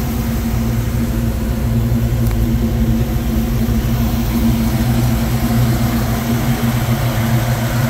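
Custom 1940s Chevrolet pickup's engine idling steadily.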